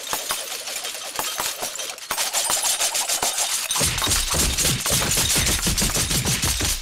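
Cartoon sound effect of a decorated Christmas tree being wrenched and whirling: a rapid, dense rattling like machine-gun fire. A low rumble joins it about four seconds in.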